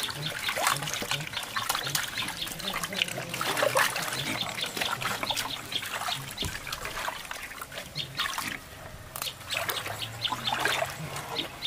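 Water sloshing and splashing in a feeding trough as a hand scrubs and rinses it out, with many short irregular scrapes and splashes.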